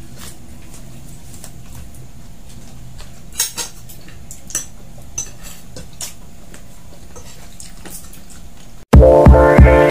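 Eating utensils clicking and scraping against takeout food containers, with a few sharp clinks between about three and six seconds in, over a faint steady hum. Near the end, loud music with a steady beat cuts in suddenly.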